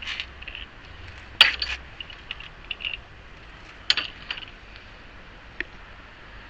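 Scattered metal clinks and taps of tools on a loosened wheel nut, the sharpest about a second and a half in, with a few lighter ones later.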